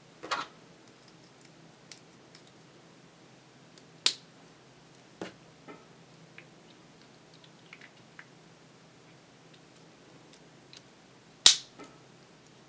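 Small hard-plastic Playmobil figure parts clicking as they are handled and pressed together: a few sharp clicks, the loudest about four seconds in and near the end, with fainter taps between.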